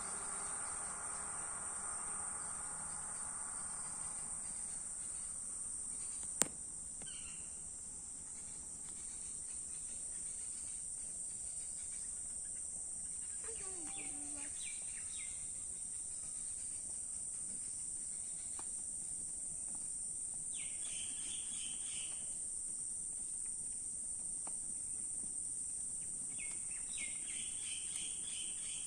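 A steady, high-pitched insect drone, with short bird chirps breaking in four or five times and a single sharp click about six seconds in.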